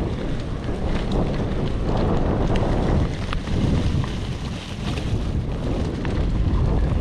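Wind buffeting an action camera's microphone while riding a mountain bike off-road, with the low rumble of the tyres on the trail. Short clicks and knocks from the bike rattling over rough ground come through now and then.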